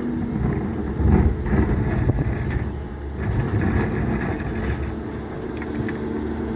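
Hydraulic excavator's diesel engine running steadily while digging, with a few brief knocks and scrapes from the work.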